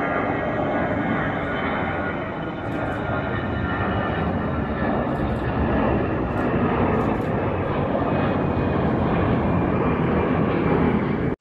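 Jet engines of a narrow-body twin-jet airliner climbing out just after takeoff: a steady loud roar, with high whining tones slowly falling in pitch over the first few seconds.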